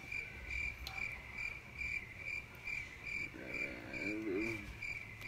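Cricket chirping: a high, very regular chirp about twice a second that starts abruptly. A short low hum, like a voice, comes in about three and a half seconds in.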